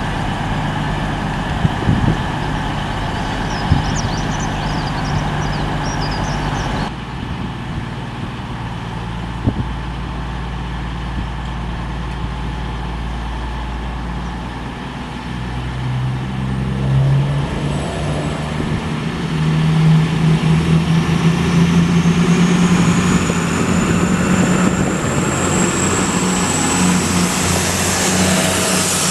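Class 222 Meridian diesel-electric multiple unit with underfloor diesel engines, running slowly at first with a few clicks. About halfway through its engines open up and grow louder, and a high-pitched whine rises steadily as the train accelerates away.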